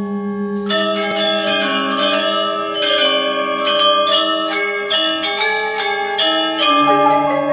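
Balinese gamelan of bronze metallophones and kettle gongs playing Rejang dance music. A long-held ringing chord gives way about a second in to a fast run of struck bronze notes over sustained low tones that pulse in a shimmering beat.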